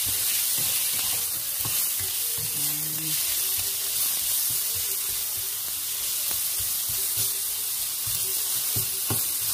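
Sliced carrots sizzling in hot olive oil in a frying pan, stirred with a spatula that scrapes and knocks against the pan many times.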